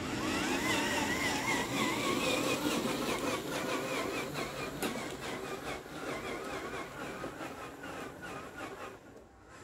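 Homemade 1/8-scale RC truck's drive motor and gears whining as it drives, the pitch wavering up and down over a rough rumble, loudest about a second in and fading as the truck moves away.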